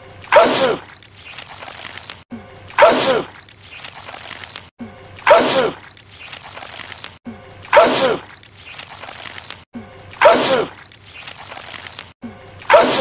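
A man's sneeze from a film soundtrack, the same clip looped six times at about two and a half second intervals. Each sneeze is a sudden loud burst that falls in pitch, followed by a quieter stretch before the next repeat.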